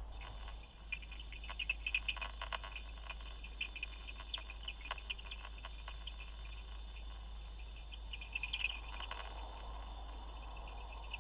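Bat detector speaker giving irregular bursts of rapid clicks: bat echolocation calls made audible, thickest about two seconds in and again near the end. A steady low hum runs underneath.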